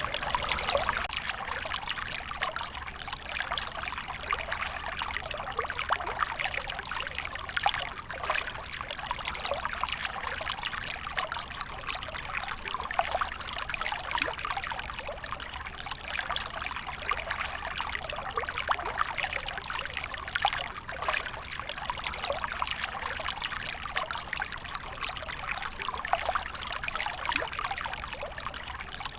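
Water trickling and splashing steadily, like a small stream running over stones.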